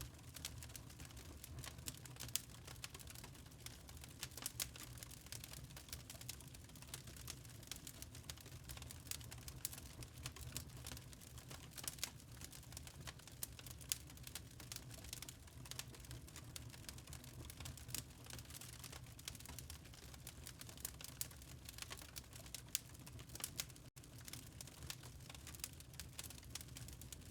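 Wood fire burning in a fireplace: irregular crackles and small pops over a steady low rumble.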